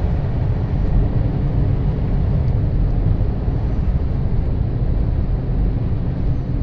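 Four-wheel-drive truck driving on a snow-covered road, heard from inside the cab: a steady low drone of engine and tyres.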